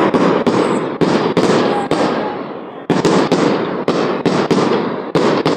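Aerial fireworks bursting in quick succession: loud bangs a few tenths of a second to a second apart, each trailing off in a fading, echoing crackle. There is a short lull just before the middle, then more rapid bangs.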